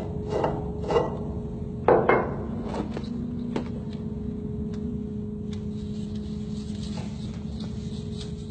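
A steady machinery hum with a few sharp knocks and clanks in the first couple of seconds, the loudest about two seconds in, then lighter clicks.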